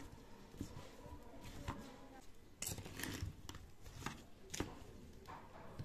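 Gloved hand mixing oily, spice-coated cucumber pieces in a bowl: faint squelching and plastic rustling, with a few short clicks about halfway through.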